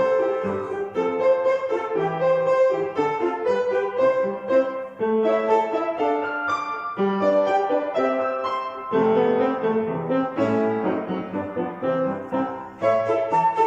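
A beginning music student playing a polka on a solo instrument: a steady melody over an oom-pah accompaniment in even polka rhythm.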